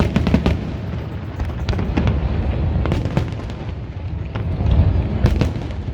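Fireworks bursting: many sharp bangs in quick succession over a continuous low rumble of booms.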